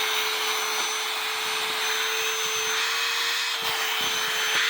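DeWalt DCV501HB 20-volt cordless hand vacuum running steadily on a 9 Ah battery: an even, high motor whine over a strong rush of air.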